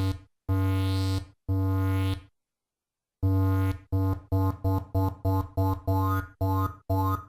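Software synthesizer in LMMS playing the same low note over and over: a few long notes, a short pause, then quicker, shorter notes about three a second. The tone changes as it goes, a wavering high shimmer coming into the later notes as the waveform is automated.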